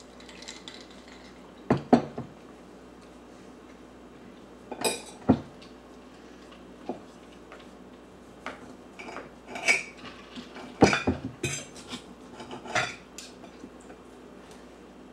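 A toddler's plastic fork knocking and scraping on a dinner plate in irregular clinks, loudest about two seconds in and in a cluster around eleven seconds.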